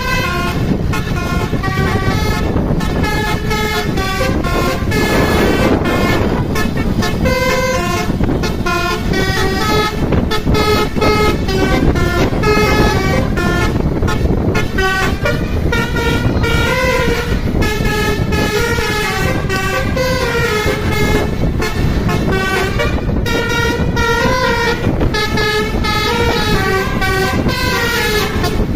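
Basuri musical bus horn playing a long, quick melody of short stepped notes, over a steady low rumble.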